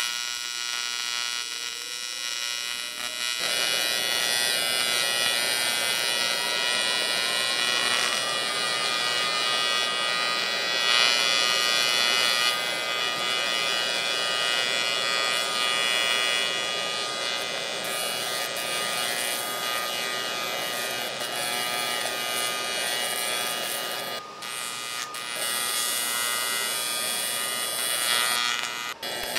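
AC TIG welding arc on a cast aluminum oil pan: a steady, hissing electric buzz, with a tone climbing in pitch over the first several seconds. The arc breaks off briefly twice late on. The casting is full of contamination, which the welder blames for the arc's sputter.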